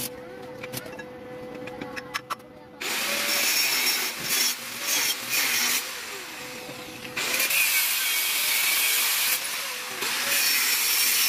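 Stick (arc) welding on a steel-rod frame: the loud, steady crackling hiss of the electrode arc, starting about three seconds in and dipping once midway before going on. Before it, fainter scattered clicks.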